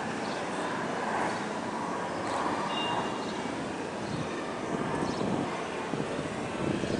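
Steady outdoor city ambience: a continuous hum of traffic and general street noise.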